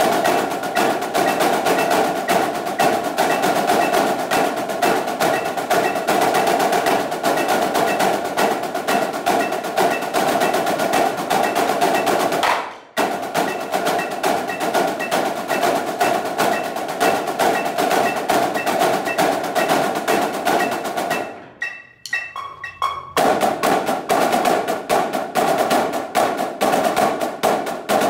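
A snare line playing fast, tightly unison stick patterns on practice pads, a dense rattle of stick strokes. It cuts off suddenly about halfway through and starts again at once. Past the three-quarter mark it drops to a few scattered strokes for about a second and a half, then picks up again.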